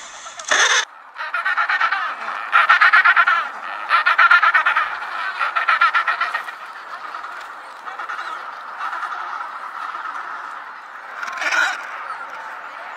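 African penguins braying: a long series of harsh, rapidly pulsed honking calls, loudest in the first half. A shorter loud call comes near the end.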